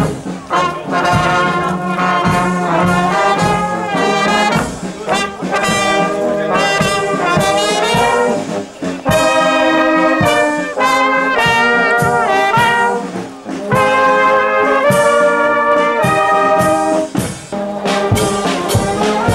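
Marching brass band playing a lively tune, trombones and trumpets leading, over a steady beat.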